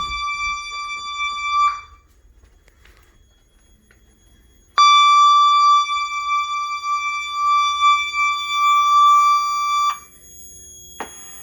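Fire alarm evacuation speakers sounding a steady, continuous high alert tone. The tone cuts out for about three seconds and then comes back just as suddenly, a dropout fault the owner has not yet traced. The tone stops near the end, leaving a low hum and one sharp click.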